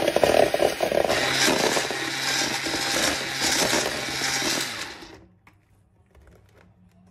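Electric hand mixer running, its beaters whisking eggs and sugar into a pale, frothy mixture in a bowl. The motor noise is loud and steady, then dies away quickly about five seconds in.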